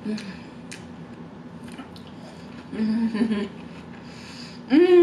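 A woman chewing a mouthful of soft pretzel bite with beer cheese, with a few small wet mouth clicks, humming "mmm" in enjoyment twice: once about three seconds in, and louder near the end with a pitch that rises then falls.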